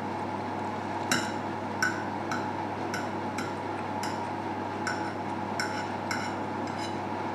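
Metal fork clinking and tapping against a ceramic plate while cutting and spearing food: a dozen or so light, irregular clinks over a steady background hum.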